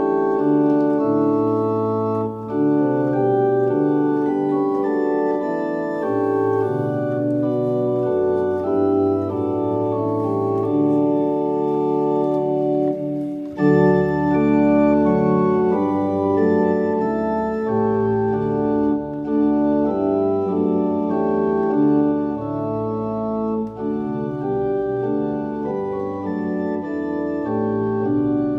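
Allen Historique electronic organ playing a classical piece: full held chords over a moving bass line, which drops deeper about halfway through.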